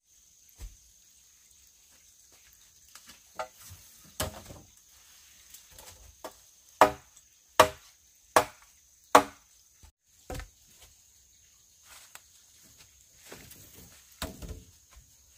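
Chopping wood with a blade: scattered strikes, with four hard blows in a row about a second apart midway.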